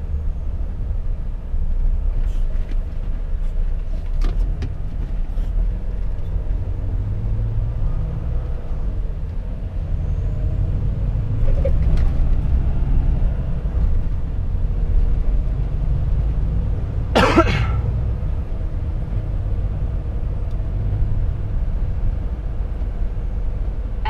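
Volvo FH 460 truck's 13-litre six-cylinder diesel engine running steadily on the move, a deep low rumble, with one short loud burst about seventeen seconds in.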